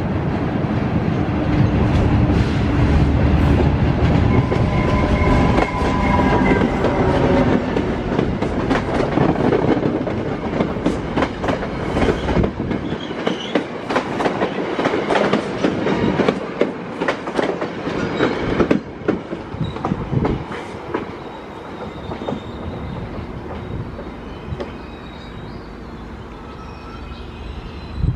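Commuter train passing close by. A heavy low rumble builds as it approaches, then the bilevel coaches go past with a rapid clatter of wheel clicks over the rail joints, which fades away as the train recedes.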